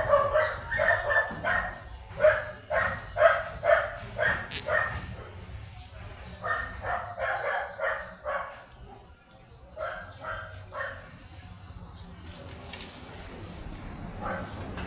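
Dogs barking in quick runs of two or three barks a second, pausing twice and going quieter for a few seconds before picking up again near the end.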